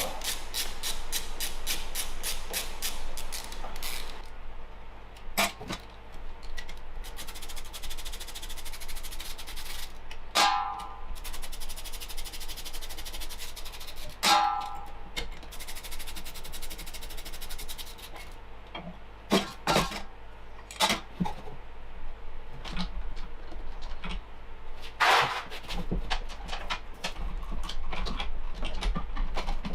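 Hand-tool work on a Briggs & Stratton DOV mower engine while its valve cover is taken off: a fast run of even clicks for the first few seconds, then scattered clicks and metallic knocks, with two short ringing clinks about 10 and 14 seconds in, over a steady low hum.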